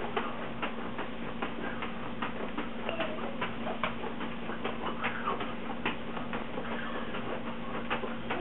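Juggling balls caught in the hands in a steady rhythm of soft taps, about two to three a second, over a steady low hum.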